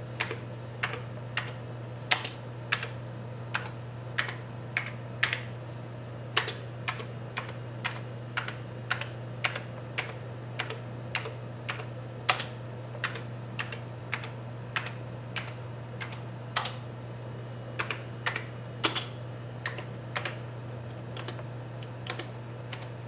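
Commodore Amiga 4000 keyboard keys pressed one at a time, each giving a crisp click, about two a second at an uneven pace, in a keyboard test. A steady low hum runs underneath.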